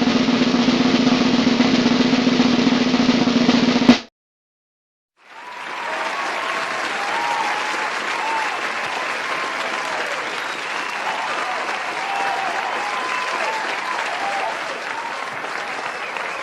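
A snare drum roll ending in a sharp hit about four seconds in, then after a short silence a crowd applauding and cheering, which carries on steadily.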